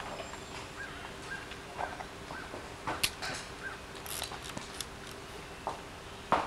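A bird calling over and over in short chirps, about two a second, while a horse walks off across gravel with a few crunching hoof steps. A sharp knock near the end is the loudest sound.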